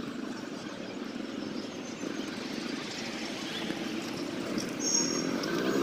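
A small commuter motorcycle's engine running at a distance as it is ridden slowly, with its pitch rising and falling near the end.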